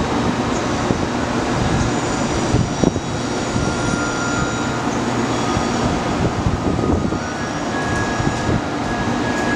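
Steady drone of electric trains standing at the platforms, their onboard equipment running, with faint steady whines over it. A couple of brief knocks about three seconds in.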